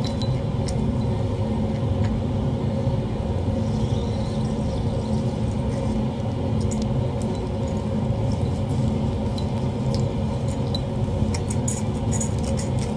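Laboratory fume hood fan running: a steady low drone with a hum, with a few faint light clicks near the end.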